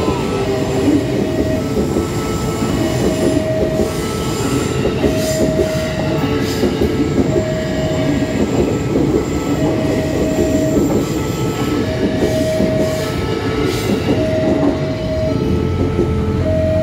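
KRL Commuter Line electric train, an ex-Tokyo Metro 6000 series set, passing over a level crossing: steady rumble with wheels clacking over rail joints and some wheel squeal. Over it the crossing's warning bell sounds a short electronic tone about once a second.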